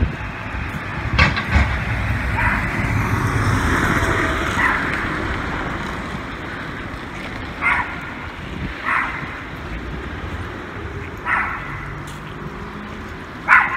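Small dogs barking in short, sharp yaps every second or two over street noise, which swells for a few seconds early in the stretch as a car passes.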